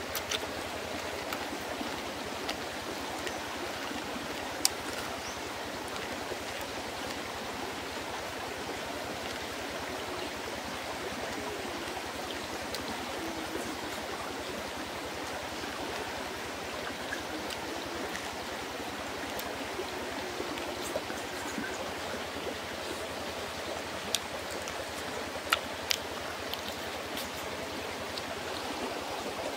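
A stream running steadily, with a few sharp clicks now and then.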